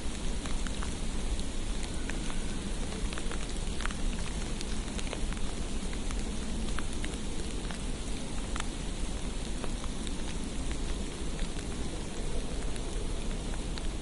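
Steady patter of falling wet precipitation on a street: an even hiss with scattered small drip-like ticks, over a faint low rumble.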